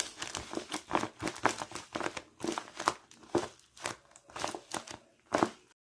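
Sheets of paper crinkling and rustling in irregular bursts as they are handled, cutting off abruptly near the end.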